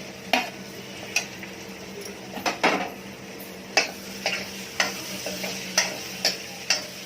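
Metal spoon or spatula knocking and scraping against a pan as cut potatoes are stirred into frying masala, in sharp irregular taps about every half second to second, over a faint sizzle and a low steady hum.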